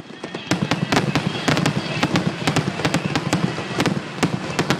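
Aerial fireworks going off in a rapid, dense string of sharp bangs and crackles, thickening about half a second in and running on as a near-continuous barrage.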